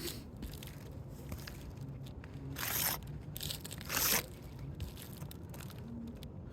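Asphalt roof shingles crunching and tearing as they are pried up with a roof snake, in two short bursts a little over a second apart. The sound is the shingles' seal strips and material giving way, the damage that makes the repair fail.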